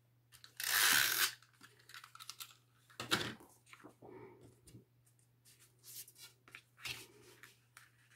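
Stampin' Up! Snail adhesive tape runner drawn across card stock in one stroke of under a second, laying glue, followed by scattered clicks and short scrapes of paper and card being handled.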